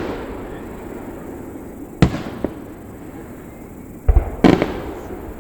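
Fireworks going off: a bang about two seconds in, followed by a fainter pop, then two more bangs in quick succession about four seconds in.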